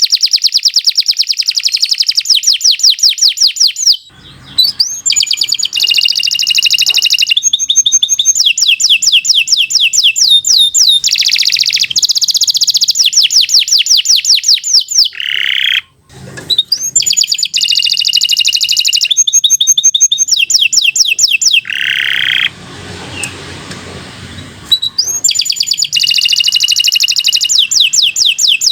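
Domestic canary singing a long, continuous song of fast rolling trills and rapidly repeated high notes, phrase after phrase with only brief pauses. A short stretch of hiss-like noise sits between phrases near the end.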